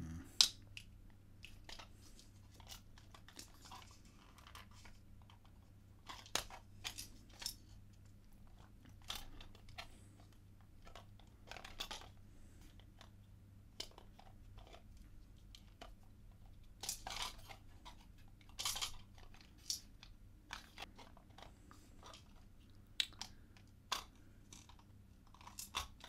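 Clicks, scrapes and small rattles of a 3D-printed plastic puzzle box being handled, its pins and buttons pushed, pulled and turned, coming in scattered bursts with gaps between.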